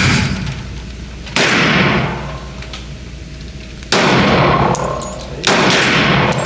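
Four gunshots at uneven intervals, roughly one to two and a half seconds apart, each with a ringing echo that fades over about a second, as in an enclosed shooting range.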